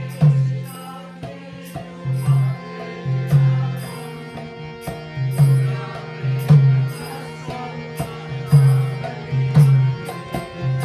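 Harmonium and mridanga playing an instrumental interlude between sung verses of a kirtan. The harmonium holds steady chords while the mridanga keeps a regular rhythm of deep bass strokes with sharp treble slaps between them.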